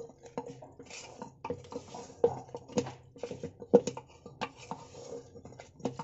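A spatula stirring lentils, tomato purée and spices in a metal pot, with irregular knocks and scrapes against the pot.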